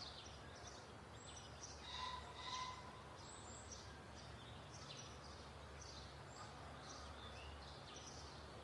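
Faint birds chirping: many short high chirps over a low steady hum, with a slightly louder whistled call about two seconds in.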